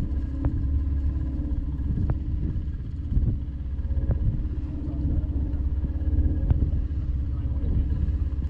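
Small boat under way: steady low rumble of its motor and rushing water, with a few sharp knocks scattered through.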